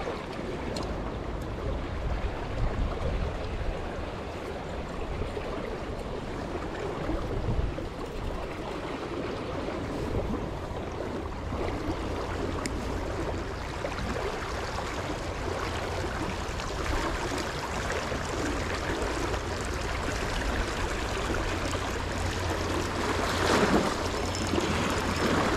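Small stream running over its bed: a steady rush of flowing water.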